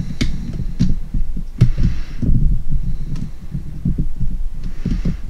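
Close handling noise of a lock cylinder and its pinned brass plug being turned in the fingers over a rubber pinning mat: irregular low thumps and rumbling, with a few sharp metal clicks.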